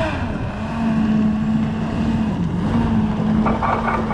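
Sherp amphibious all-terrain vehicle's diesel engine running as it drives slowly. Its note drops right at the start, dips briefly about halfway through, then comes back up and holds steady.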